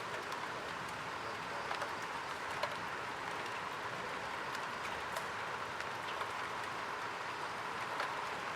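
Rain starting to fall: a steady hiss with scattered sharp ticks of individual drops.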